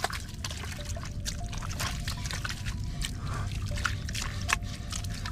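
Bare hands scooping and splashing in muddy water in a hole: a quick run of small wet splashes and drips over a steady low rumble.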